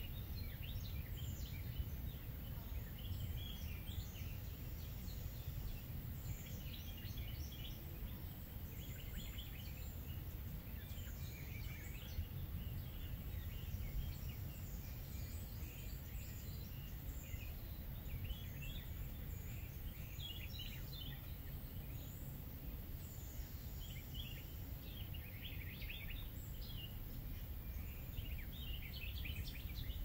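Wild birds singing, with many short chirps and trills from several birds overlapping throughout, over a steady low background rumble.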